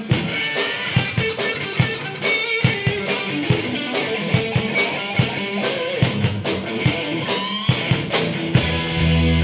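Live rock band playing: electric guitar riffing over a drum kit, with heavier bass notes coming in near the end.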